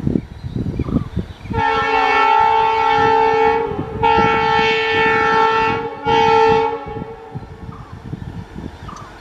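Air horn of a WDP4D diesel locomotive sounding three blasts, two long and then a short one, several notes at once. A low rumble with scattered knocks runs underneath as the train passes.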